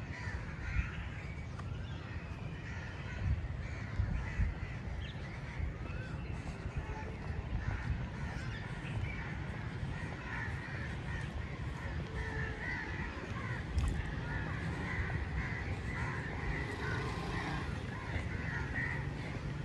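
Birds calling in the trees, many short overlapping calls, over a steady low rumble.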